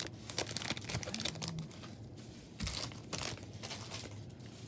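Pokémon trading cards and their packaging being handled: irregular soft clicks and light rustling as the cards are flicked through.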